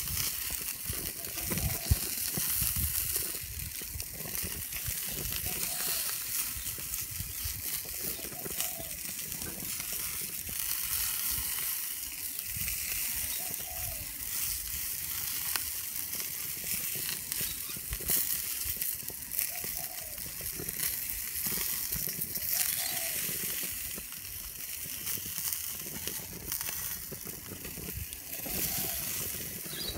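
Sausages sizzling on a gas grill, a steady crackling hiss of fat spitting on the hot grates. Metal tongs clack sharply once against the grate about two seconds in.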